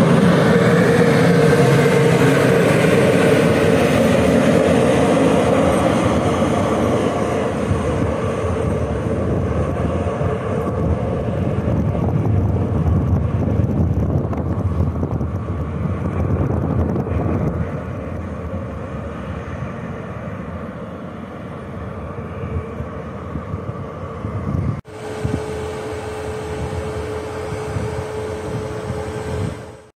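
A train running past and moving away, its rumble with a few held tones slowly fading. About 25 seconds in the sound breaks off abruptly and a steadier hum with a single held tone follows.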